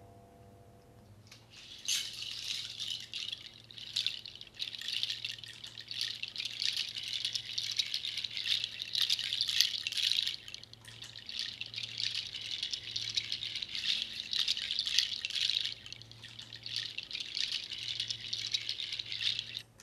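Close-miked rattling and rustling of a small hand-held object, shaken and rubbed in front of a microphone as foley for a live loop. It starts about two seconds in and goes on in irregular waves, over a faint steady low hum.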